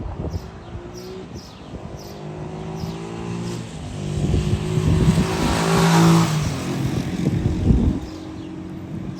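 A motor vehicle's engine passing close by, building up to its loudest about six seconds in and then fading.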